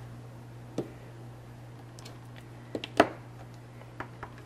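A few sharp clicks and taps of a clear acrylic stamp block against the ink pad and the tabletop while rubber-stamping. The loudest tap comes about three seconds in.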